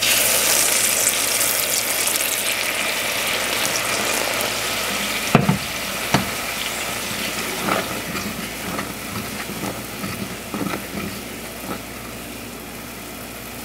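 Boiling water poured onto onions frying in oil in a clay pot: a loud hiss and sizzle that dies away over the first few seconds as the water comes straight to the boil. Then a wooden spoon stirs, knocking against the clay pot a few times.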